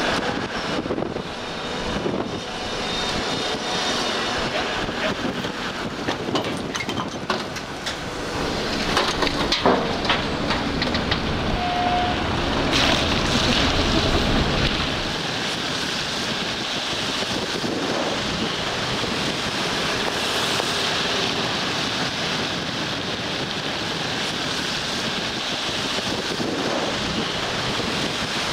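Steady rush of a moving vehicle's road noise, mixed with wind noise on the microphone. There is a stretch of scattered knocks and clatter around the middle and a brief single beep near the middle.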